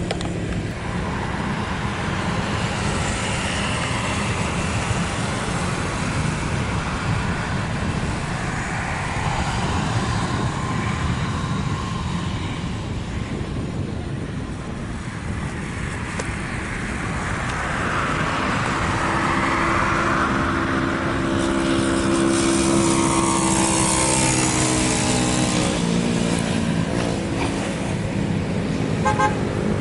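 Military aircraft engines running at takeoff power: a steady low rumble, swelling about two-thirds of the way through. After that a set of tones comes in and slides down in pitch over several seconds as an aircraft goes past.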